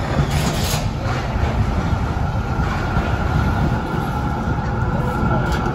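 B2-class articulated tram running past close by on its rails, a steady low rumble with a thin high whine joining about two seconds in.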